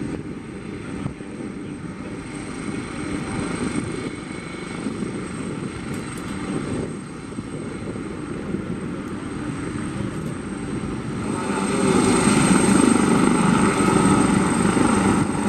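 Turbine helicopter running on the ground with its rotors turning as it taxis: steady rotor and engine noise with a thin high whine, growing louder about three-quarters of the way through.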